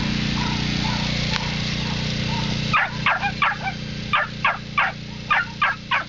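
A dog barking: about ten short, sharp barks in three quick bursts, starting about three seconds in, over a steady mechanical hum.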